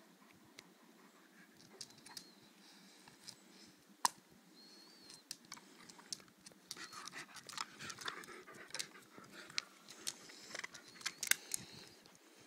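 A German Shepherd-type dog panting, with scattered sharp clicks and cracks from the small stick it is playing with; the clicks come thicker in the second half.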